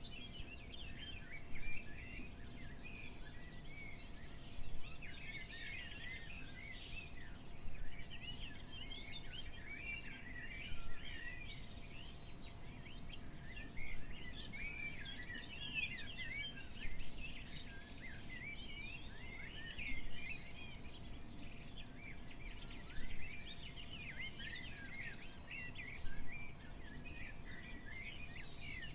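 Many small birds chirping and twittering all at once in a dense chorus, over a faint steady hum. A short, louder thump recurs about every three seconds.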